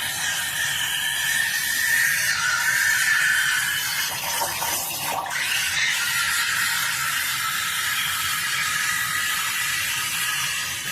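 Steam wand of a small 3.5-bar steam espresso machine hissing steadily as it froths milk, with a brief change in the hiss about halfway through.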